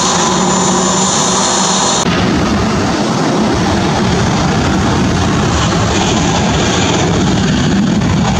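Airliner jet engines running on the apron: a steady high whine over a low hum. About two seconds in, the audio cuts abruptly to a broader, rougher steady jet roar without the whine.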